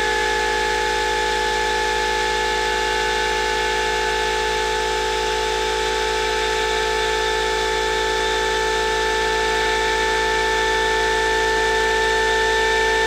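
Muller motor replication, a magnet rotor spun past transistor-pulsed coils, running steadily at about 3,200 RPM: a steady whine with several pitches stacked together.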